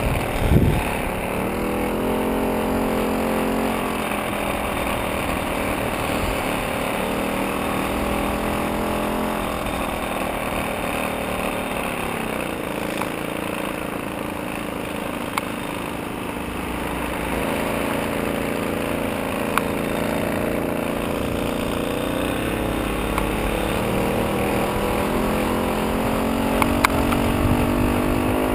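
VéloSoleX moped's small single-cylinder two-stroke engine running under way, its note rising and falling several times with speed, over wind and road noise. A thump about half a second in.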